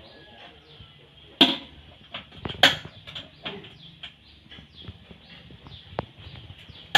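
Two loud knocks a little over a second apart, then lighter clicks and taps, as parts of a popcorn machine and its glass-and-aluminium cart are handled.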